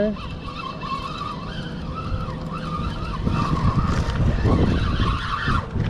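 Penn spinning reel being cranked steadily, its gears giving a wavering whine, while a hooked mangrove snapper is wound in. The whine stops just before the end. Wind rumble on the microphone grows louder about halfway through.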